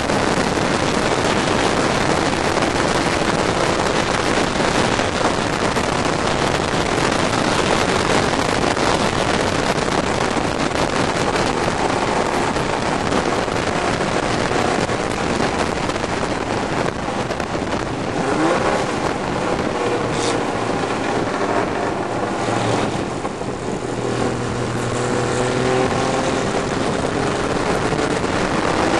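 Racing car's engine at high revs heard onboard, mixed with heavy wind rush on the microphone. About two-thirds of the way through the revs drop briefly, then climb again as the car accelerates.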